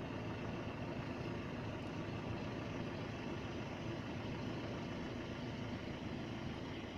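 Steady low engine rumble, like a motor vehicle idling, holding level without change.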